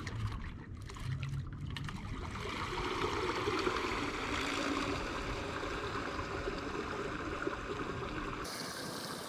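Water churning and splashing in the wash of twin electric trolling motor propellers as a canoe pulls away from the dock, a steady rushing that swells a couple of seconds in.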